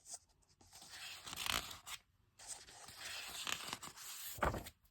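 Paper pages of a picture book being handled and turned: faint scratchy rustling and sliding in two stretches, ending with a short sharper rustle.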